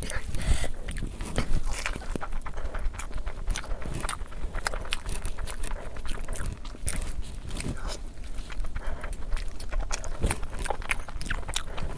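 Close-miked wet chewing and lip-smacking while eating curry with rice, a dense run of irregular mouth clicks.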